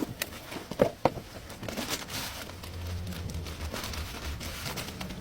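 Tools and metal parts being handled: a few sharp knocks and clicks about a second in, then rustling and crackling with a low hum in the middle.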